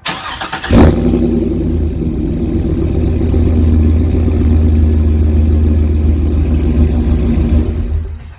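Chevrolet Trailblazer SS's LS2 V8 engine cranked by the starter and catching in under a second, then idling steadily until the sound cuts off abruptly near the end.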